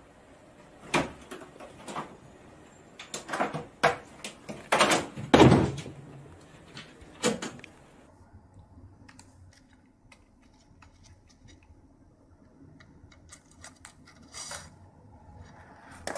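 A run of irregular knocks, bumps and scrapes, the loudest about five seconds in, as cats clamber onto a wall-mounted air conditioner's plastic casing. Quiet room tone with a few faint ticks follows.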